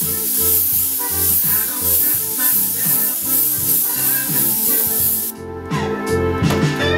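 Airbrush spraying paint onto a T-shirt, a steady hiss that cuts off suddenly about five seconds in. Background music plays throughout.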